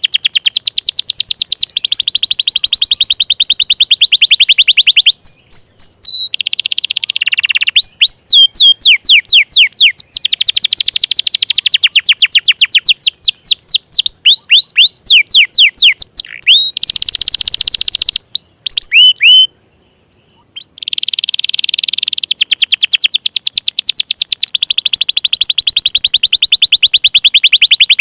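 Domestic canary in full song: long, very fast high trills alternating with series of quick falling chirps, breaking off for about a second partway through before trilling again.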